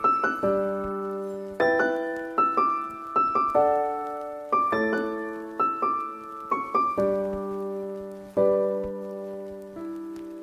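Background music: solo piano, notes and chords struck one after another and left to ring out.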